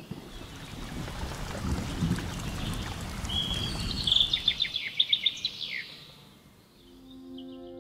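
Songbird calling: a quick run of bright repeated notes and a falling whistle over a steady rushing outdoor noise. Soft ambient music with held tones comes in near the end.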